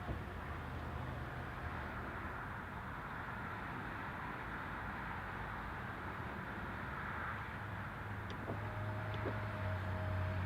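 Steady highway traffic noise coming in through the open windows of a car, a continuous rush of passing vehicles and tyres. From about eight seconds in, a low drone and a faint steady tone join it.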